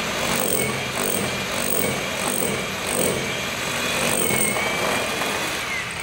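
Milwaukee SDS rotary hammer drill hammering a hole into a brick wall, running steadily and easing off at the end.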